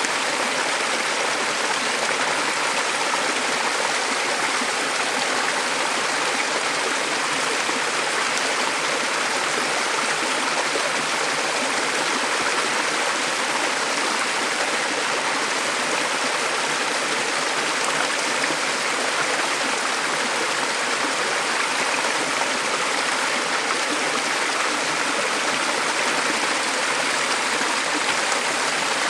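Small mountain stream flowing over rocks: a steady, even rush of water.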